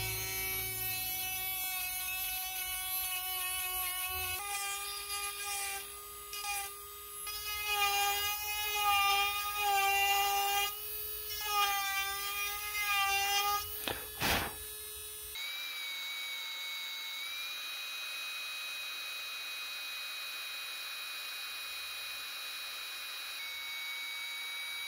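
Electric rotary carving tool (pen-style micro-motor handpiece) whining as its burr grinds into a wooden lure body; the pitch sags and wavers as it bites into the wood. For the last ten seconds or so it runs at a steadier, higher whine.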